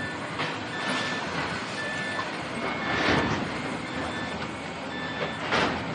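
Demolition-site machinery running, with a reversing alarm beeping about once a second. Two loud crashes of falling rubble, about three seconds in and again near the end.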